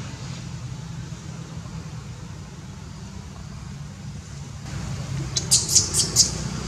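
A steady low rumble, then about five short, high-pitched squeaks in quick succession a little over five seconds in.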